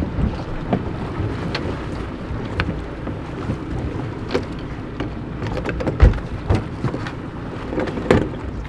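Steady low rumble of a fishing boat on open ocean with wind on the microphone, broken by scattered short knocks and clicks; one sharp thump about six seconds in is the loudest.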